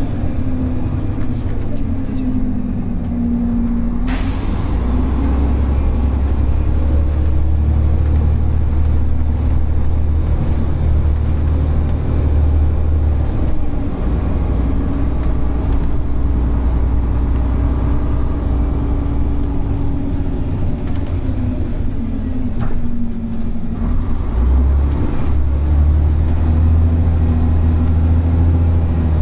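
Volvo Olympian double-decker bus with a Voith automatic gearbox heard from on board, its diesel engine running on the road. The deep engine drone strengthens twice under load, and a sudden hiss of air comes about four seconds in.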